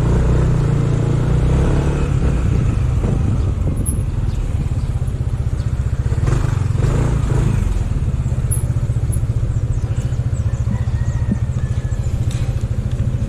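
Motor scooter engine running at low speed, a steady low rumble while riding slowly, with a few light knocks.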